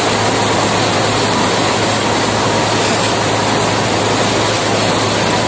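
Factory machinery running: a loud, steady rushing noise with a constant low hum.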